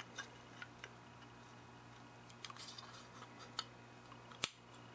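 Small clicks and scrapes of a thin metal shield can being handled and fitted over a component's housing and threaded shaft, with one sharp metal click about four and a half seconds in. A faint low hum runs underneath.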